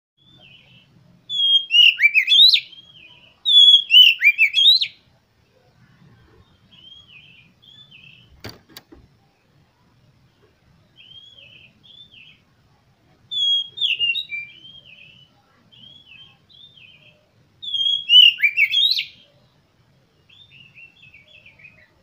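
Oriental magpie-robin singing: four loud runs of rapid sweeping whistled notes, with softer short phrases in between. A single sharp knock comes about eight and a half seconds in.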